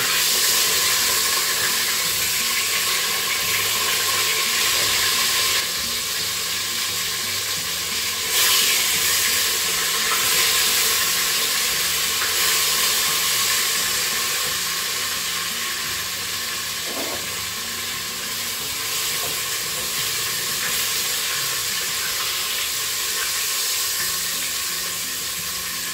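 Pork loins frying and sizzling in the inner pot of a Crockpot pressure cooker, a steady hiss as they brown.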